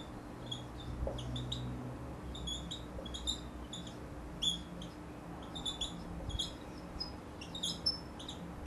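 Whiteboard marker squeaking against the whiteboard as it writes, in short high chirps that come irregularly, several a second, over a faint steady hum.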